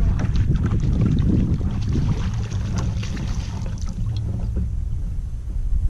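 Wind rumbling on the action-camera microphone, with a scatter of crackling splashes and knocks as a hooked bass is fought and netted beside the kayak; the splashing is busiest in the first four seconds and thins out after that.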